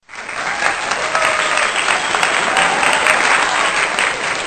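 Crowd applauding: dense, steady clapping that starts abruptly.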